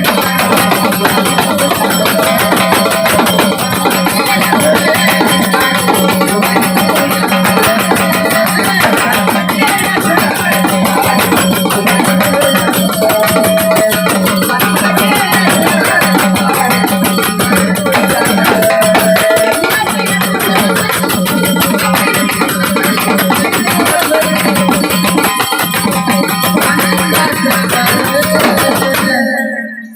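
Instrumental interlude of a Marathi folk gavlan song: dense, steady percussion with instruments playing over it. It stops just before the singing returns.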